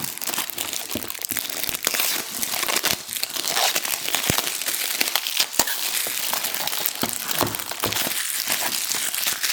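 Wrapping on a trading-card hobby box crinkling and crackling as it is pulled off and handled, with many small snaps and clicks. The wrapping is stuck on.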